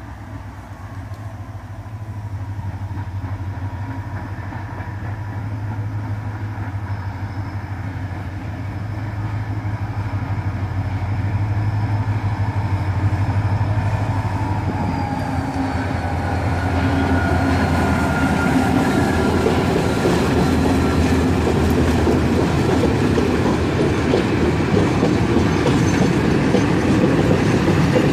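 EMD GT26CU-2 (DE11A) diesel-electric locomotive with its V16 two-stroke diesel running as it approaches and passes, its drone growing steadily louder. A high whine drops in pitch about halfway through as the locomotive goes by. It is followed by empty ore wagons rolling past with rising wheel-on-rail clatter.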